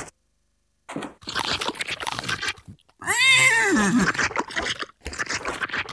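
Apples being crunched and chewed. About three seconds in there is a short call that rises and then falls in pitch, a horse's whinny.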